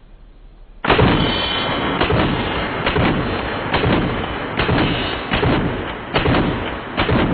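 Benelli Super Black Eagle 12-gauge semi-automatic shotgun fired rapidly, about eight shots a little under a second apart starting about a second in, with steel targets ringing from the hits.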